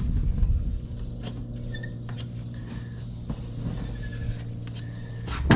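Gloved fingers scratching and picking at a paper sticker on galvanized metal roof flashing: faint scattered scrapes and clicks over a steady low hum, with one sharp click near the end.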